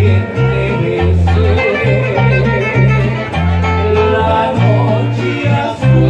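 Live bolero trio playing an instrumental passage: acoustic guitar and electric keyboard, with a bass line of held low notes changing about every half second under the melody.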